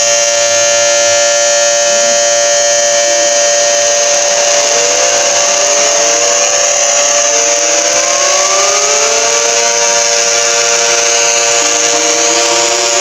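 Emergency alert system alarm, very loud and harsh: several steady tones held together under a constant hiss. From about four seconds in, siren-like tones repeatedly slide upward over them.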